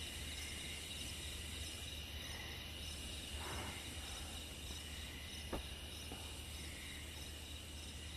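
Crickets trilling steadily, with a faint click about five and a half seconds in.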